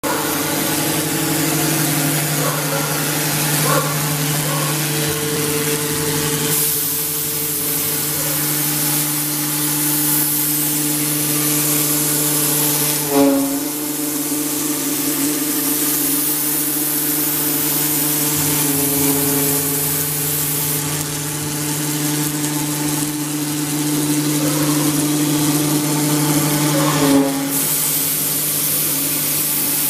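CNC router spindle running steadily while its bit carves a relief into a block of white foam: a steady hum of a few low tones with a hiss of cutting over it, shifting briefly twice.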